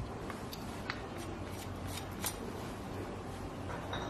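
Light clicks and rustling of whole spices and leaves (cardamom, fennel, ginger, mint) being dropped and handled into a pan of water, a few sharp ticks in the first couple of seconds over a low steady hiss.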